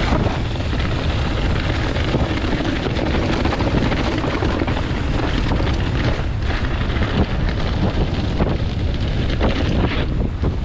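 Wind buffeting a chest-mounted action camera's microphone as a Canyon mountain bike rolls fast down a dirt trail, with steady tyre noise and frequent knocks and rattles from the bike over bumps.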